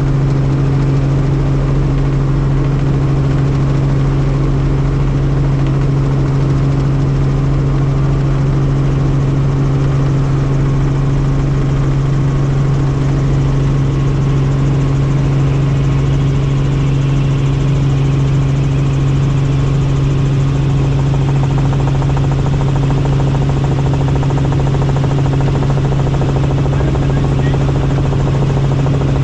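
Helicopter in flight: a steady drone with a strong low hum from the rotors, holding one pitch throughout.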